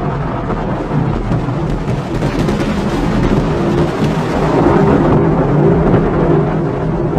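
Low rumble and crackle of a SpaceX Falcon 9's nine first-stage Merlin engines during ascent, growing somewhat louder about four seconds in.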